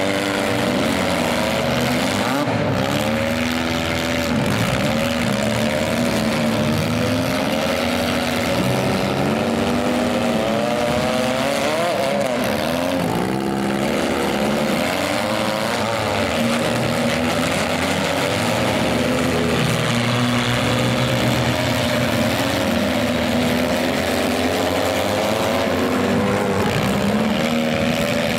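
Several demolition-derby minivan engines running and revving hard at once, their pitches rising and falling against one another as the vans push and shove.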